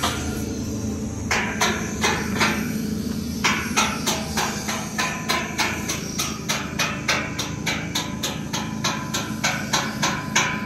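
Hammer blows, a few spaced strikes and then a steady run of about three a second, over a continuous low hum.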